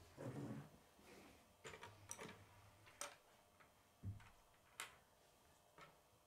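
Faint clicks and knocks of plastic K'nex pieces being handled and fitted onto a model frame: a scatter of light, separate clicks, with a duller knock about four seconds in.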